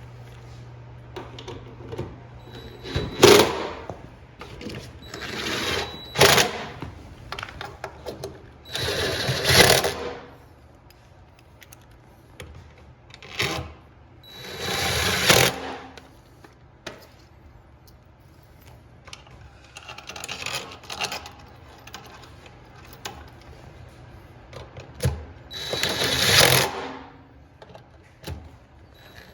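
Electric screwdriver driving in the screws that hold a washing machine's motor stator, in about eight short runs of roughly a second each with pauses between.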